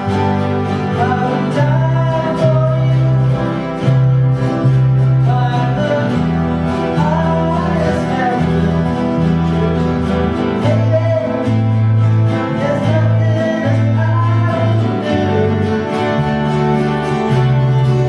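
Three steel-string acoustic guitars playing a song together: steady strummed chords over low bass notes that change every second or so.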